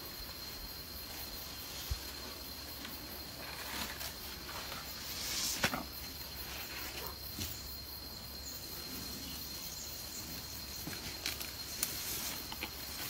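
Outdoor ambience with a steady high thin whine, and scattered rustles and snaps of vegetation as a wild Sri Lankan elephant works its trunk on a coconut palm. The loudest event is a sharp snap about five and a half seconds in.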